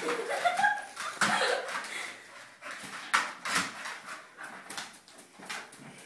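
Dog whining in excited play, with a run of sharp clicks and knocks from feet on the hard kitchen floor.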